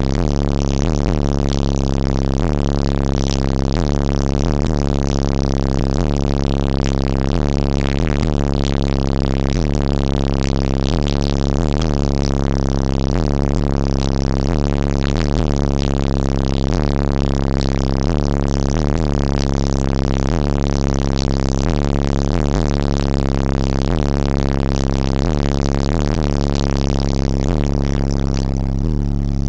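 Two 15-inch AA Chaos subwoofers playing bass very loud inside a car cabin, heard as a steady, distorted low drone with a regular beat running through it.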